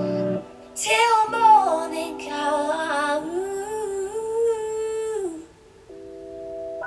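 Recorded song playing: a singing voice holds a long, wavering note over sustained accompaniment, then stops, leaving a few steady chord tones near the end.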